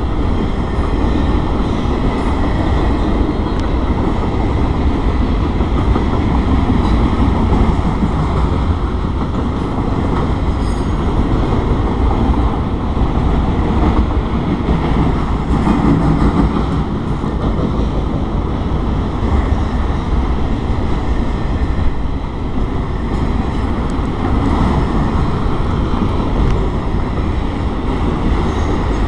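Freight train cars rolling steadily past a grade crossing, a continuous rumble and rattle of cars on the rails.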